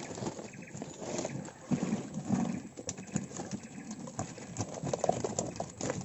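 Irregular taps, knocks and splashes as live fish are handled out of a fish trap.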